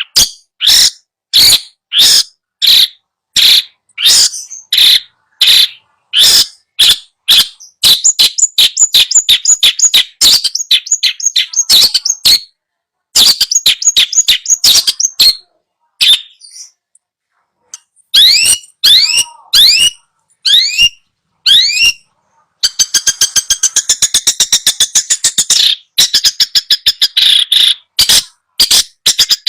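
Loud recorded birdsong played as a tutoring track to coax a reluctant long-tailed shrike into singing. Harsh, sharp calls repeat about twice a second, then give way to rapid chattering trills. A short gap is followed by a run of upward-sweeping notes, and a fast rattling trill sounds near the end.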